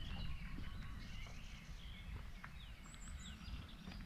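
Small birds calling, a run of short whistled chirps that swoop up and down in pitch, over a steady low wind rumble on the microphone.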